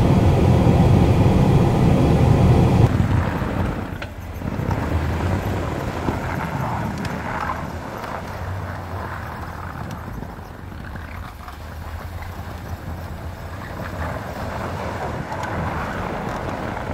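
Pickup truck driving on a snowy road, heard from inside the cab as a steady low engine and road rumble. About three seconds in this cuts to the quieter low hum of the truck idling, heard from outside.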